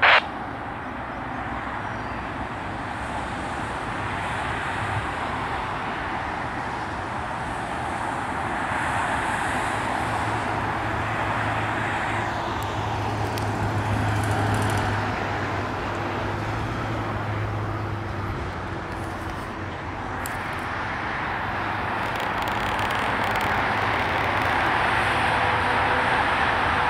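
Steady road-traffic noise from passing vehicles, swelling and fading, with a low engine hum in the middle that grows louder again near the end.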